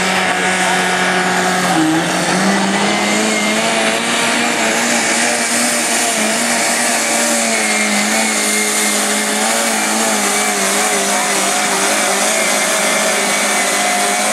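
Garden-class pulling tractor's engine held at full throttle as it drags a weight-transfer sled down the pulling track. Its pitch steps up about two seconds in, then holds high and steady with a slight waver.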